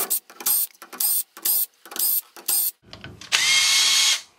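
Cordless drill/driver backing 1/4-inch screws out of a furnace flapper-assembly cover, run in a string of short spurts and then one longer spin of about a second near the end, its motor whine rising as it spins up.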